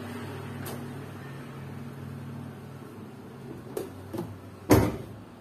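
A steady low hum, a couple of light knocks, then one loud thump near the end.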